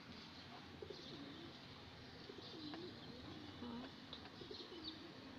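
Faint cooing of doves, short low coos repeated every second or so, with faint high bird chirps above them.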